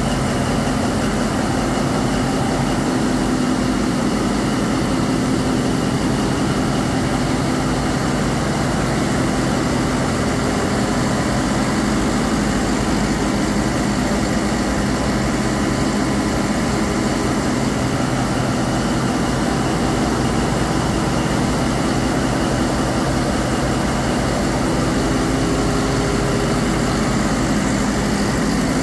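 Steady drone of running diesel machinery in a harbour tug's engine room, loud and unbroken, with a few steady hum tones in it.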